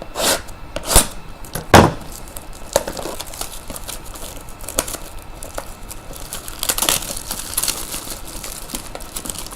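Plastic wrapping crinkling and tearing as sealed trading-card boxes are opened and handled, with three sharp knocks in the first two seconds.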